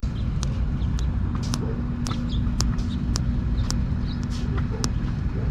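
Thumb joints cracking and popping: a run of sharp clicks, irregular and roughly one to two a second, over a steady low rumble.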